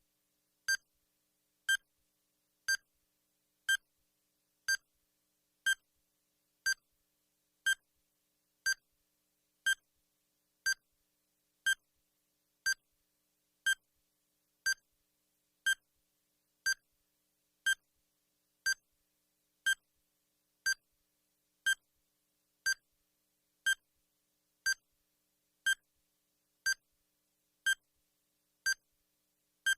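Bomb countdown timer sound effect: a short, high electronic beep once every second, each one the same pitch, evenly spaced.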